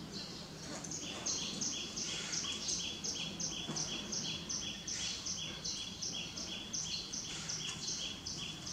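Rhythmic high-pitched chirping, about three chirps a second and alternating between two pitches, starting about a second in.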